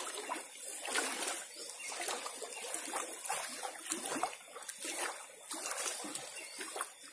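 Shallow floodwater splashing and trickling, with many small irregular splashes.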